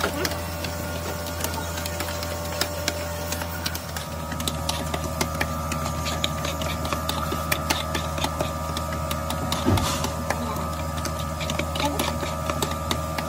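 Steady hum of a motor-driven workshop machine, with a higher whine joining about four seconds in, over frequent light clicks and scrapes as lead oxide paste is pressed by hand into lead battery grid plates.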